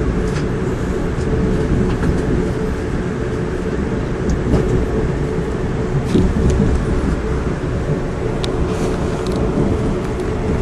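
Inside a moving passenger train: a steady rumble of wheels on rails with a faint constant hum and a few scattered clicks.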